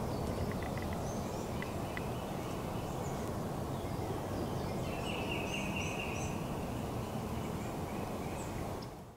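Woodland ambience: a steady rushing background with small birds chirping, and a wild turkey gobbling once, about five seconds in. The whole bed fades in at the start and fades out at the end.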